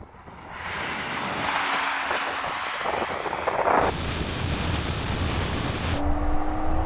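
Tuned BMW 3 Series cars running flat out in a rolling drag race: a steady rush of engine, tyre and wind noise, with a faint steady engine drone that rises slightly in pitch near the end. The sound changes abruptly about four and six seconds in.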